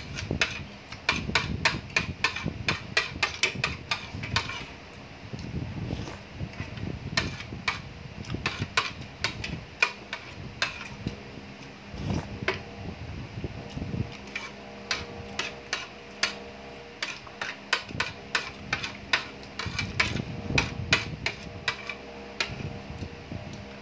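Metal spoon and fork clinking and scraping against a ceramic plate in quick runs of sharp clicks with short pauses between.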